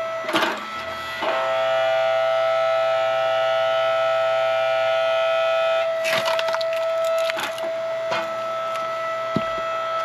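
Hydraulic log splitter running with a steady, siren-like whine. From about a second in, the whine thickens as the ram pushes into a log. About six seconds in, the wood cracks and splinters apart in a burst of snapping.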